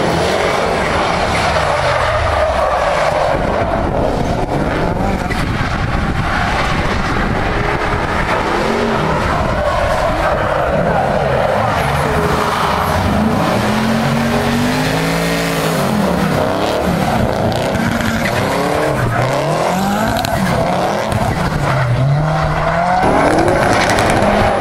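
Drift cars sliding through corners, their engines revving up and down in repeated sweeps on and off the throttle, with tyre squeal and skidding noise throughout.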